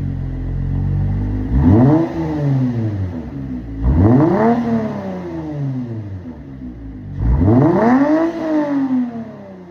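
Lexus IS350's 3.5-litre V6 exhaust revved three times. Each rev shoots up quickly in pitch, then falls slowly back toward idle.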